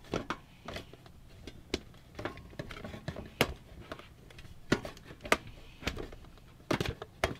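Scattered clicks and knocks as an optical drive is handled and pushed into a PC case's drive bay, where it is a tight fit.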